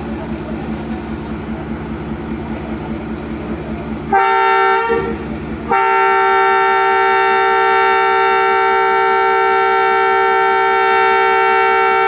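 Pakistan Railways ZCU-30 diesel-electric locomotive's multi-tone air horn sounding a chord, a short blast about four seconds in, then after a brief pause a long steady blast of about six seconds. Beneath it the locomotive's diesel engine runs steadily.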